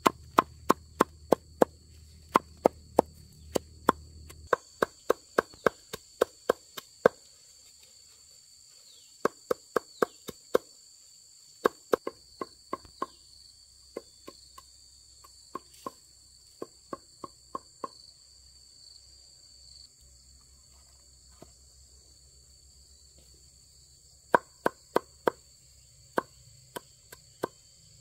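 Repeated chopping strokes, a blade striking in runs of about two or three blows a second, pausing now and then and for several seconds near the end. A steady high drone of insects runs underneath.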